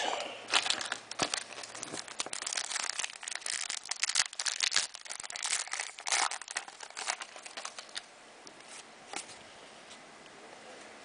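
Plastic trading-card pack wrapper crinkling and tearing as it is opened and handled, in quick irregular crackles that die down about eight seconds in.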